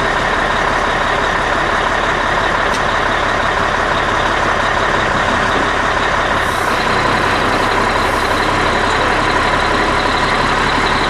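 Caterpillar C12 diesel engine of an Oshkosh MTVR 7-ton truck running steadily as the truck is driven forward.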